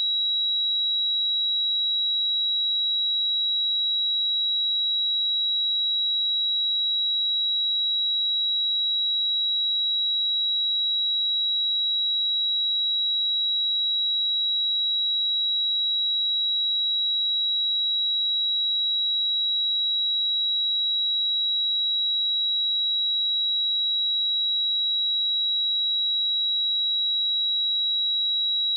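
A pure 3874 Hz sine-wave test tone, a single steady high-pitched tone held at a constant level.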